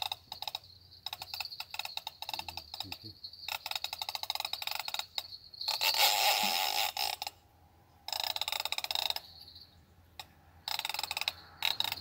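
Fishing reel clicking rapidly in repeated bursts of a second or two with short pauses, its ratchet working as the line is wound or drawn. The loudest burst comes about halfway through.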